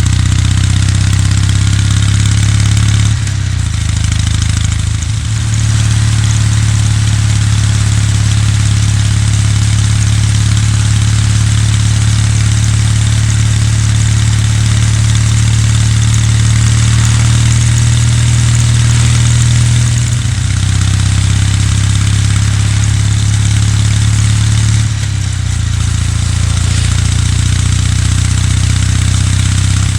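Kawasaki W800's air-cooled parallel-twin engine running under way with a steady exhaust note. The note drops and resettles about three seconds in, again around twenty seconds, and near twenty-five seconds.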